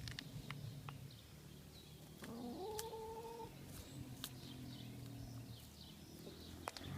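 A chicken's drawn-out call, rising and then held for about a second, a couple of seconds in, among faint high chirps and a few sharp clicks.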